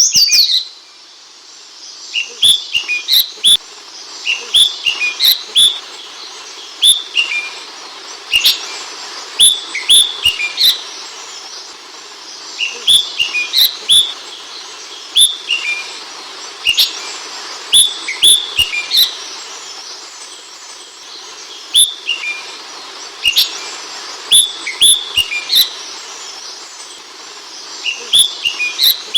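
Ashy bulbul (Hemixos flavala) calling: short chirps that fall in pitch, in quick runs of two to four, repeated every second or two with sharp clicks among them, over a steady hiss.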